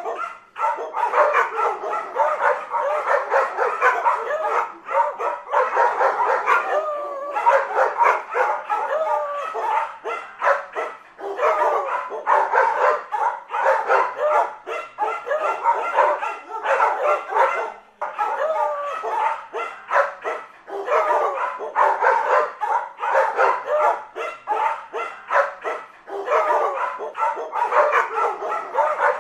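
Several dogs barking at once, the calls overlapping with hardly a break.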